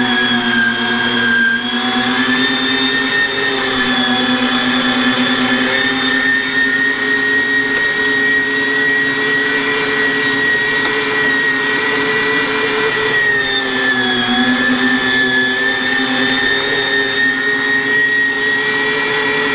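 Electric meat grinder motor running steadily with a loud whine while grinding raw chicken. Its pitch sags briefly about a second in and again near fourteen seconds, then recovers.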